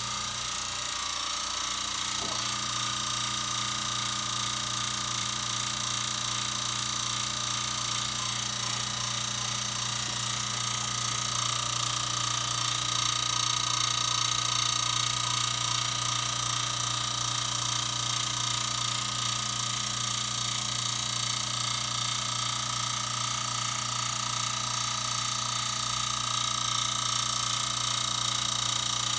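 Gas boiler running with a steady high-pitched whistle over a low hum.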